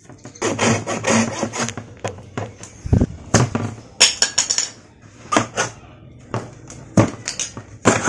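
Hand blade scraping and scoring along the edge of a fibre-cement sheet in a run of uneven strokes, with a knock about three seconds in.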